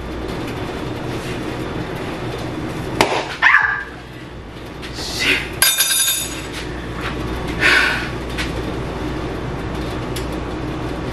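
Metal spoon prying and knocking at a refrigerated biscuit can, with a click about three seconds in and a sharp ringing metallic clink a little past halfway, over a steady hum.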